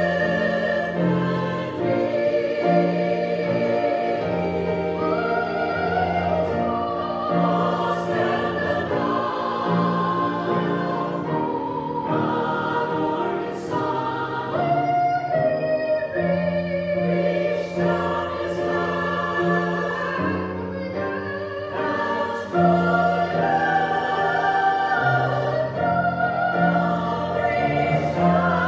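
Church choir singing a sacred piece with keyboard accompaniment, held notes moving every second or so over a steady bass.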